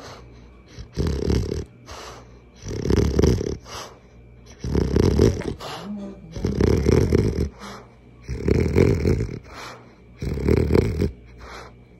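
French Bulldog snoring in its sleep: six snores in a steady rhythm, one about every two seconds.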